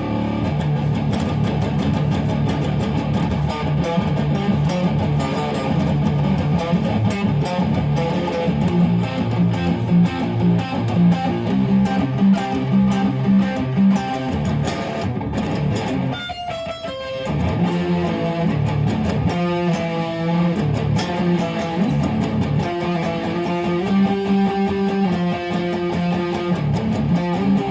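Gibson 1967 Explorer electric guitar played through an amplifier: chords and riffs, with a brief dip and a quick run of notes a little past halfway, then held single notes and riffs.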